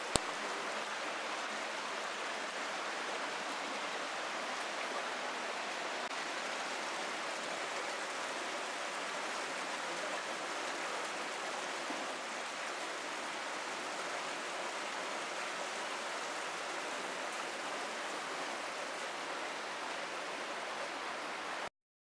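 Shallow canyon stream running over rocks: a steady, even rush of water that cuts off suddenly near the end.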